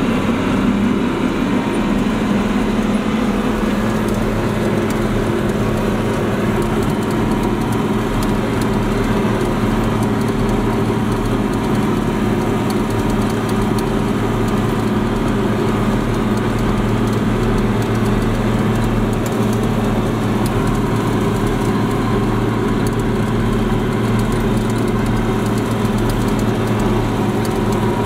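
International tractor's diesel engine and PTO-driven batwing rotary cutter running steadily while mowing grass, heard from inside the tractor cab: a constant low drone with no change in engine speed.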